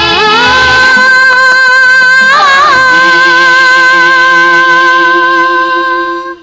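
Closing note of a Bollywood film song: one long held note with vibrato that slides up at the start and wavers briefly in the middle, over soft accompaniment. The music cuts off near the end.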